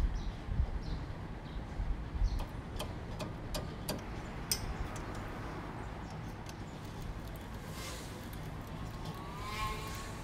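A 14 mm combination spanner on a Perodua Viva's front brake caliper bolt while the bolt is being undone: a run of sharp metal clicks and clinks in the first half, then a low steady background hum.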